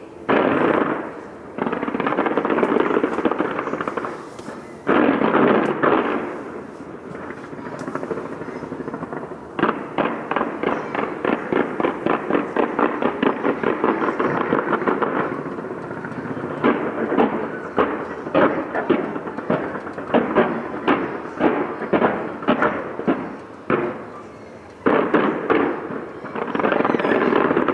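Fireworks exploding: heavy bursts, each followed by a long crackling tail. From about ten seconds in comes a long run of sharp separate bangs, several a second, and another big burst comes near the end.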